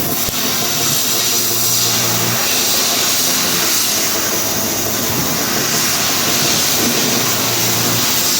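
Steady, loud hiss of a CNC fiber laser's assist-gas jet cutting mild steel sheet, with a few faint held low music notes under it.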